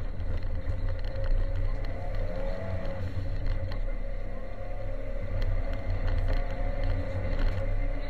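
Ford Sierra Cosworth 4x4's turbocharged four-cylinder engine running at rally pace, heard from inside the cabin under a heavy low rumble of road and drivetrain noise, its note rising and falling a little with the throttle. Scattered sharp clicks run through it.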